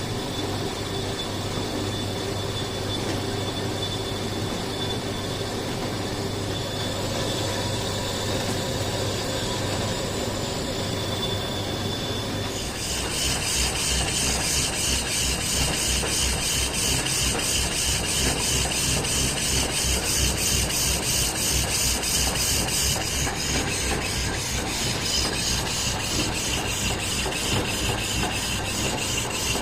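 Lathe running with a steady machine hum. About 13 seconds in, a louder scraping with a fast, even rhythm starts and carries on.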